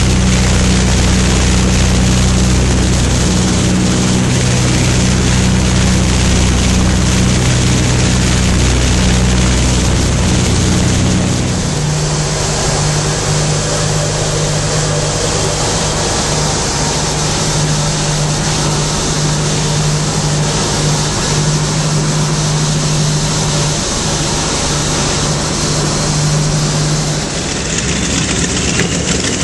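The twin Wright R-2600 Twin Cyclone radial engines of a B-25J Mitchell bomber running steadily in flight, heard loud from inside the aircraft with propeller and air noise. The steady engine note shifts about twelve seconds in and again near the end.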